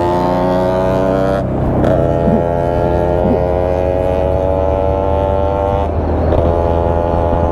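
Motorcycle engine running at cruising speed with a steady drone, its pitch creeping slowly upward; the sound is briefly disturbed about one and a half seconds in and again near six seconds.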